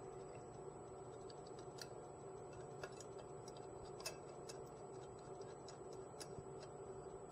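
Faint, scattered small clicks and ticks of a ground wire being fastened to the terminal hardware of a high-voltage oscilloscope probe in a metal can, over a steady electrical hum.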